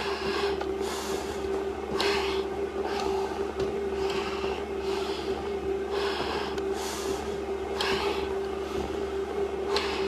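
Hard, fast breathing through a firefighter's SCBA facepiece and regulator, each breath a hiss, roughly one a second. A steady hum runs underneath.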